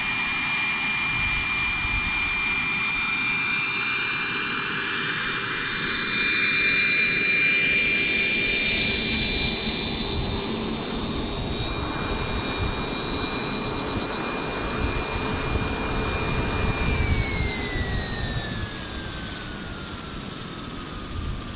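Wren 44i micro gas turbine in a T-Rex 700 radio-controlled helicopter: a steady high turbine whine with rotor noise as the helicopter comes down and lands. Near the end the whine falls steadily in pitch as the turbine spools down.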